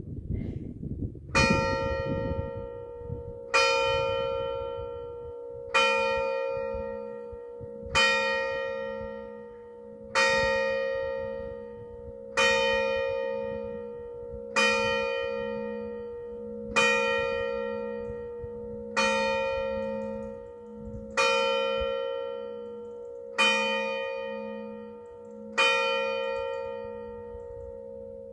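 A single church bell tolling in slow, even strokes, about one every two seconds, each stroke at the same pitch and left to ring and fade before the next. A brief low rumble comes before the first stroke.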